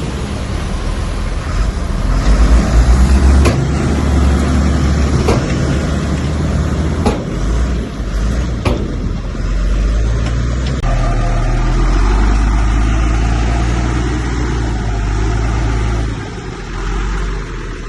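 Heavy diesel earthmoving machinery running loudly under load, with four sharp metallic clanks in the first half; the engine note shifts to a steadier drone about eleven seconds in.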